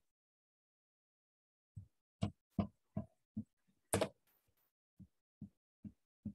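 About ten short, muffled thumps or knocks, the loudest about four seconds in; the last few come evenly, about two a second.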